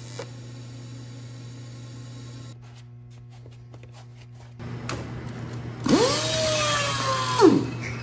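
Steady electric hum of the welding arc during a tack weld. After a cut, an angle grinder's motor whines up sharply in pitch about six seconds in, runs briefly with a slowly falling whine, then winds down quickly near the end.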